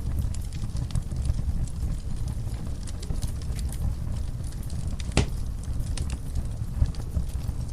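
Wood fire burning in a fireplace: a steady low rumble with scattered small crackles and one louder pop about five seconds in.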